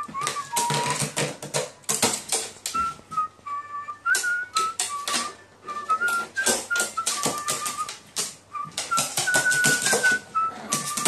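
A whistled melody of background music runs throughout, over rapid, irregular clusters of sharp taps and clicks from a carrion crow's beak pecking at a wooden board and small plastic toys.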